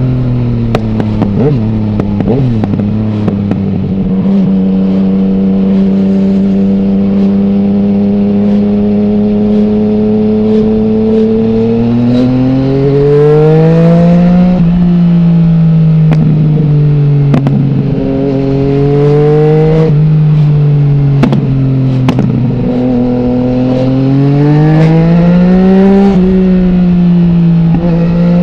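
Yamaha MT-09's three-cylinder engine through an Akrapovic full-system exhaust with no dB killer, heard from the rider's helmet. It cruises at steady revs for a while, then the revs rise and fall several times as the bike accelerates and eases off, with a few short sharp clicks.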